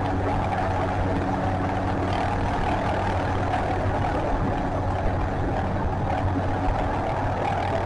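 MD 530 turbine helicopter in a low hover just off the ground, its jet engine and rotors making a loud, steady whine over a low hum.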